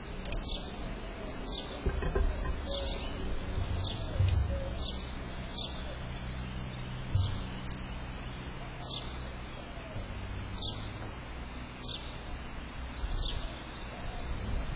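A small bird calling over and over: a short, high note sliding downward, repeated about once a second, over a low rumble.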